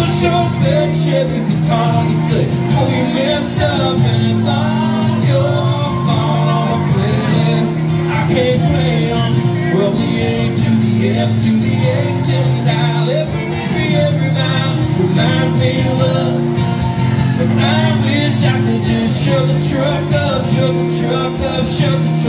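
Live country song: a male singer singing over a strummed acoustic guitar.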